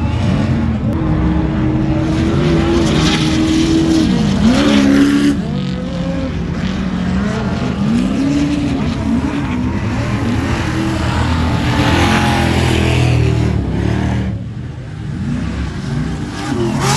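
Off-road race trucks and buggies running hard on a dirt track, their engines revving up and down over the rumble of tires and dirt. The sound dips briefly near the end.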